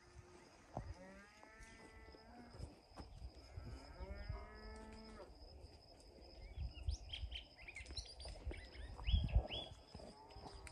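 A cow mooing twice, each call lasting about a second, followed by birds chirping in quick rising notes. A few low thumps come near the end.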